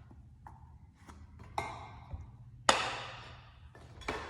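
Tacky wax being handled and rubbed onto a hockey stick blade: a few light taps, then a sharp knock about two and a half seconds in with a scrape that fades over about a second.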